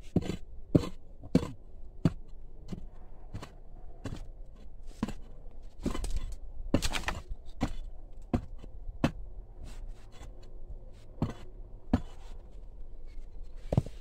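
Hand digging at stone and packed earth: a digging tool strikes again and again in irregular knocks, roughly one or two a second, with a few harder blows among them.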